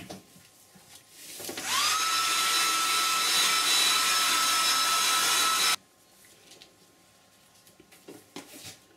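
Hair dryer switched on about a second and a half in, its motor whining quickly up to a steady pitch over a rush of air. It blows for about four seconds, then cuts off suddenly.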